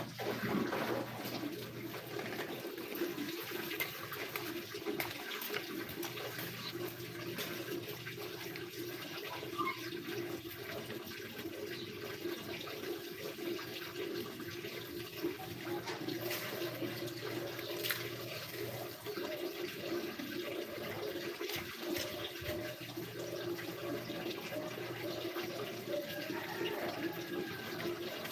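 Water running steadily, with a few faint clicks.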